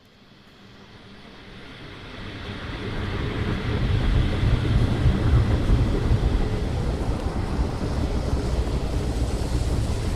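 AI-generated sound effect from ElevenLabs: a deep, rumbling wash of noise that fades in from silence over about four seconds and then holds steady, like wind, surf or a passing train.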